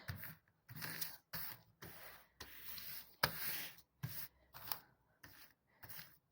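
Faint, irregular rubbing and scraping of the challenge items being shuffled around on a table, in short bursts with brief gaps.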